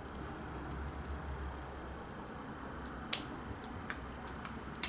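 Faint, scattered light clicks of fingertips patting and tapping skincare essence into the skin of the face and neck, over a low steady room hum. The clearest click comes about three seconds in.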